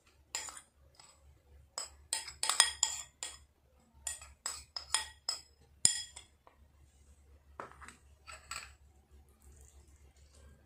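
Metal spoon scraping and clinking against a ceramic bowl and a wire mesh strainer while grated potato is spooned into the strainer to press out its juice. The clinks come in short clusters of quick ringing taps, with a single sharp knock about six seconds in.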